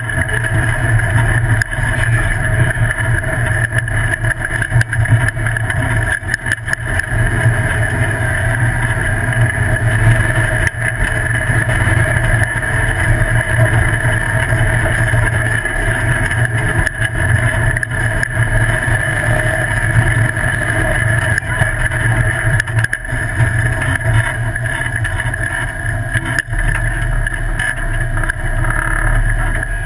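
Off-road buggy's engine running steadily while the buggy drives across a dirt flat, heard close up from beside the engine.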